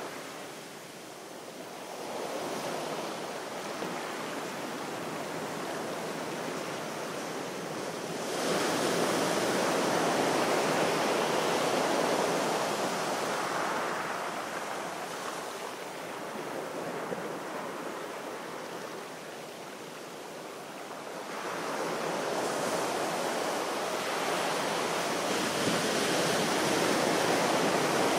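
Sea waves washing onto a shore, a continuous rush of surf that swells up sharply about eight seconds in, eases away, and builds again a little past twenty seconds.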